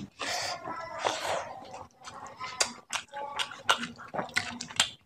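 Wet eating sounds: fingers squishing rice mixed with fish curry, and chewing with lip smacks, heard as a soft squelchy stretch followed by a run of quick sticky clicks.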